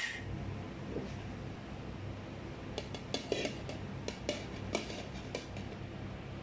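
A serving spoon clinking and scraping against a metal pan in a run of short sharp clicks, mostly about three to five seconds in, over a steady low hum.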